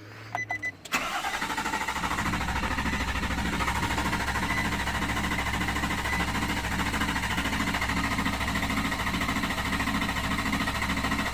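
2016 Nissan Titan engine being turned over by the starter, a steady rhythmic run that begins suddenly about a second in and does not stop; the truck is in its recurring no-start condition.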